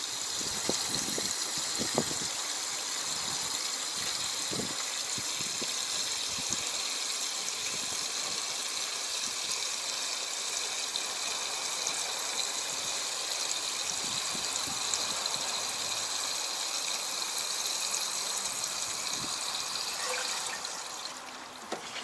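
Diesel fuel pouring from a jerry can through its spout hose into a crawler tractor's fuel tank: a steady rush of fuel filling the tank, with a few light knocks in the first seconds, that tails off about twenty seconds in.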